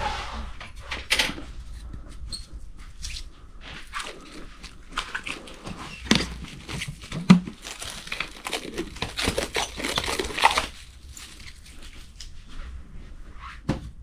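Clear plastic stretch wrap pulled off its roll and wound around a bicycle handlebar grip and brake lever, crackling and squeaking with a few sharp knocks. It stops about ten and a half seconds in.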